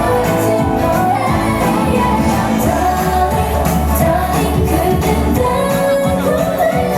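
K-pop girl group singing live over a loud pop backing track with a steady beat, female voices carrying the melody.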